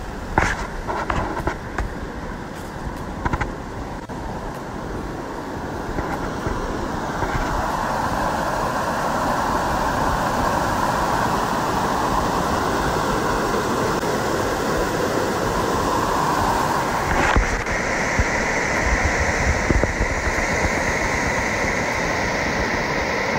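Steady rush of water cascading over granite, growing louder a few seconds in and then holding. A few handling knocks come in the first seconds.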